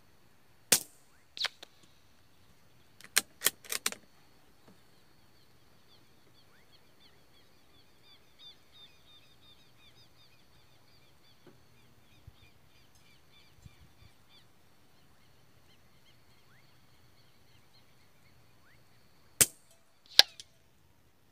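.22 LR bolt-action rifle firing: sharp reports about a second in and twice near the end, with a quick run of clicks around three to four seconds in that fits the bolt being cycled. A bird sings in the quiet stretch between the shots.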